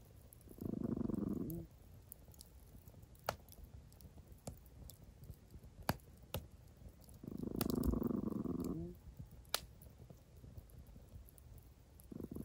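A dog growling low, twice: about a second near the start, and again for nearly two seconds just past the middle, a warning growl at something unseen. Campfire crackling with sharp scattered pops in between.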